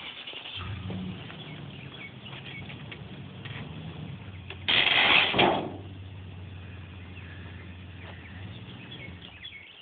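Pickup truck engine running steadily as it tows a Chevrolet Chevette off its jack stands on a strap. About five seconds in, a loud crash lasting under a second as the car's front comes down off the stands.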